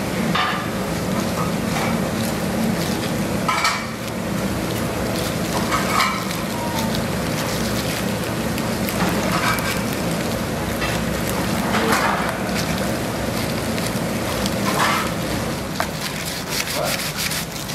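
Steady kitchen background noise, a hiss over a low hum, broken every few seconds by brief short sounds.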